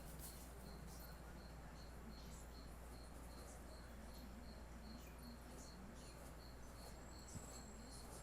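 Faint insect chirping: a short high note repeating evenly about three times a second, over a low steady hum.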